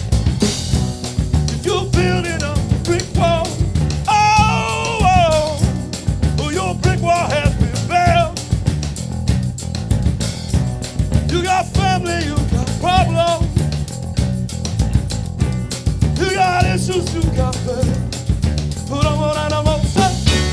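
Live rock band playing: drum kit, electric bass and electric guitar with a steady beat, and a singing voice rising and falling over them.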